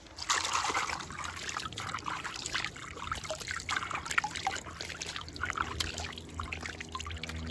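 Hands splashing and rubbing together in shallow water, rinsed clean, with water trickling and dripping off them in many small irregular splashes that start suddenly about a quarter of a second in.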